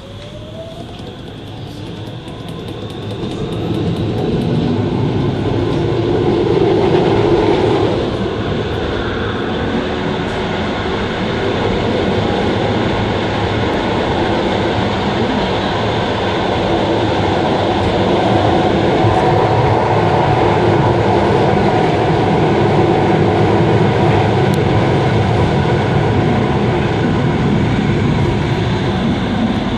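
Tram running, heard from inside the passenger cabin: a rising electric motor whine as it picks up speed over the first couple of seconds, then the steady rumble and rattle of the car running on the rails, louder from about four seconds in.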